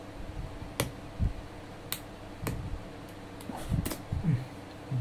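Four sharp plastic clicks and a few soft knocks from handling an opened smartphone and its parts during disassembly.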